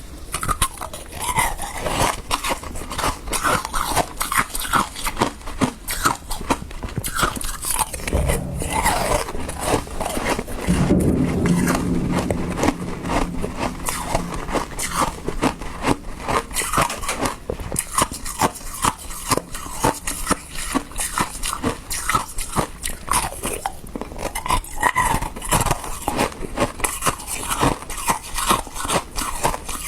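Close-miked crunching and chewing of slushy shaved ice: a dense, steady run of crisp, wet crunches, with a louder, fuller stretch about ten seconds in.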